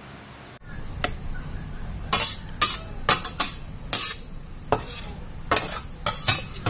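A spoon scraping and clicking against a baking dish as a tuna and onion mixture is spread over sliced potatoes, in about a dozen irregular strokes starting about half a second in.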